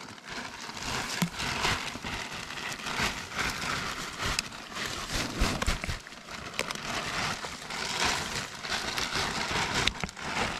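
Irregular rustling and crackling with scattered small knocks.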